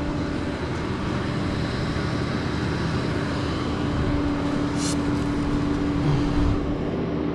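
Tow truck engine idling steadily, with a single short click about five seconds in.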